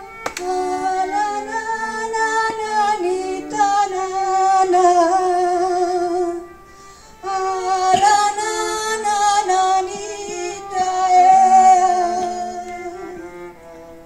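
Violin playing a slow lullaby melody with vibrato, joined by a woman's wordless singing. The music breaks off briefly about six and a half seconds in and comes back with a sharp attack.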